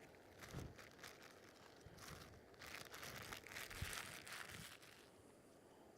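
Faint rustling and crinkling from things being handled, with a few light clicks, strongest in the middle and stopping about five seconds in.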